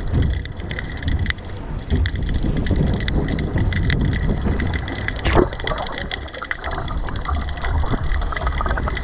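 Sea water washing around a fishing pier, with wind rumbling on the microphone. Scattered light clicks, and one sharper click about five and a half seconds in.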